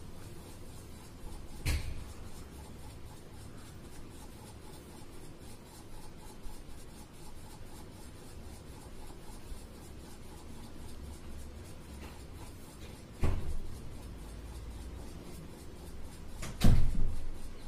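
A pen scratching and rubbing on paper as a drawing is outlined in black, broken by three sharp knocks, the loudest near the end.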